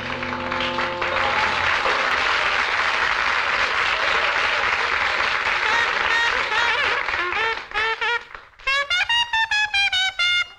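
Swing jazz from a full band with brass, dense and steady, giving way about eight seconds in to a solo trumpet playing high, separated notes.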